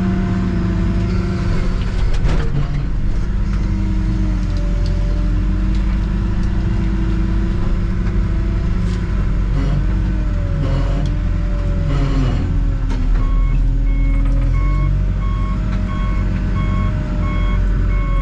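Backhoe engine running under varying load, its pitch rising and falling as it works through brush, with scattered sharp snaps. In the last several seconds its reverse alarm beeps steadily, about two beeps a second, as the machine backs up.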